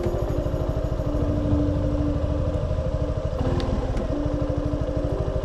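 Motorcycle engine running steadily, its exhaust pulses even, with the engine note stepping to a slightly different pitch about three seconds in.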